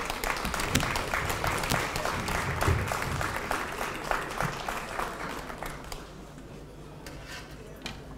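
Audience applauding, the clapping thinning out and dying away about six seconds in.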